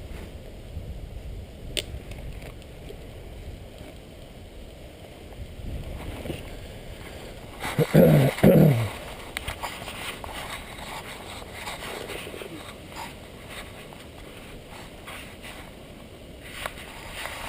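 Wind rumbling over the microphone, with scattered clicks and rustles of the camera being handled. About eight seconds in come two short, loud sounds that fall in pitch, one right after the other.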